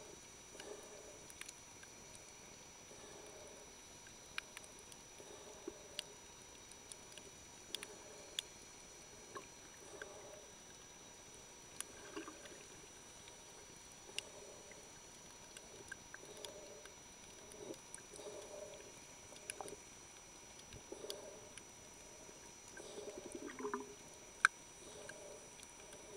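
Faint underwater sound of a snorkeler moving through shallow water: soft, muffled swishes repeating roughly once a second, with scattered sharp clicks, one louder click near the end.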